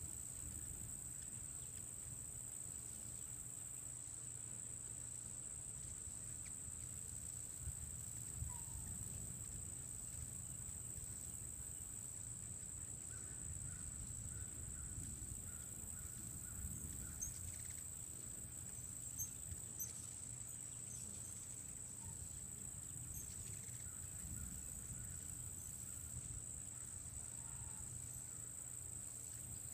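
A steady, high-pitched trilling of insects that never lets up, with a few faint chirps about halfway through and a low rumble underneath.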